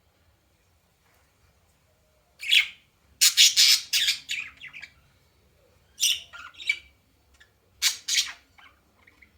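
A bird calling in four short bursts of rough, noisy calls, with near silence between them.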